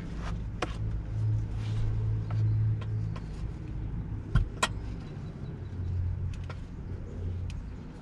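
Hands working a plastic infant car seat base into a car's back seat: a few sharp clicks and knocks, the loudest about four and a half seconds in, over a low steady rumble.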